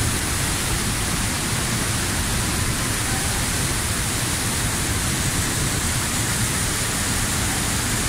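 Palovit Waterfall's water crashing into its plunge pool, a steady, loud rush, heard close up at the foot of the falls in the spray.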